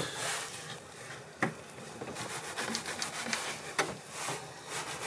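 Knife slicing raw tahr meat on a wooden cutting board: soft cutting and rubbing, with two sharper taps of the blade on the board, about one and a half seconds in and near four seconds.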